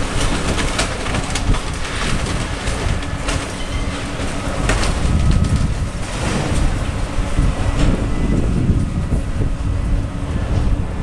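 Demolition excavator breaking up a building: a steady low engine rumble under crunching and cracking of debris, with many sharp knocks and heavier rumbling falls of material around the middle.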